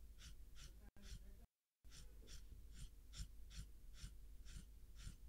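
Near silence: faint room tone with a low hum and a soft, even ticking about three times a second, cut by two brief dropouts about a second in.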